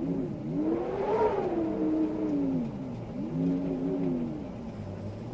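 Wind howling: a moaning tone that swells up and sinks back in slow, wavering arches, over a faint steady rush.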